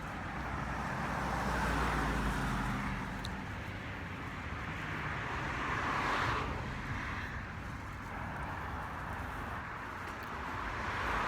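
Road traffic noise: a steady rush of cars with a low rumble, swelling about two seconds in and again around six seconds in.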